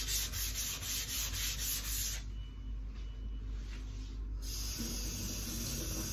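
Norton 8000-grit waterstone rubbed back and forth on wet 320-grit wet-and-dry sandpaper, a quick rhythmic rasping as the hone's face is cleaned up. The strokes stop about two seconds in, and a steady hiss starts a little after four seconds.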